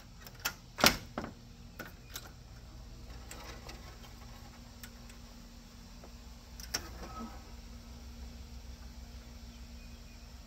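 A loud sharp click about a second in, with a few lighter clicks around it and one more near the middle, over a steady low hum.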